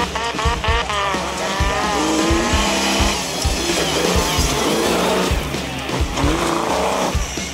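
Off-road racing buggy's engine revving hard as it powers along a dirt course, its pitch climbing in rising sweeps near the start. Music with a steady beat plays underneath.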